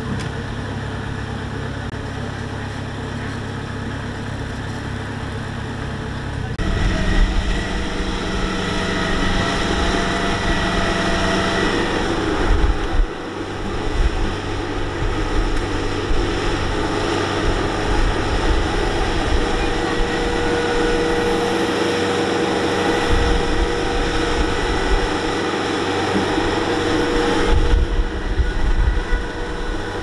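Kubota combine harvester's diesel engine running steadily under harvesting load, a low hum with the whine of its working machinery. About six seconds in it becomes abruptly louder and rougher, with low buffeting rumbles, which then hold.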